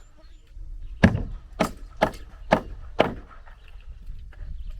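Hammer driving a nail into wooden wall framing: five strikes about two a second, starting about a second in.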